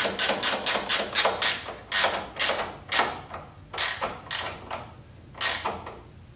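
Ratchet wrench clicking as the bolts of a BMW E30's radiator support bracket are run down: even clicks about four a second, slowing in the second half to single clicks half a second to a second apart.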